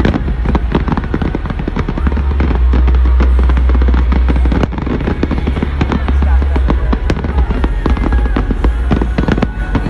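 Aerial fireworks bursting overhead: a rapid, continuous run of sharp cracks and bangs from many shells going off at once.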